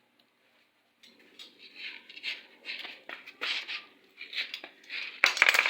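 Metal parts and hand tools being handled: irregular clinks and short scrapes, with a louder flurry of clatter near the end.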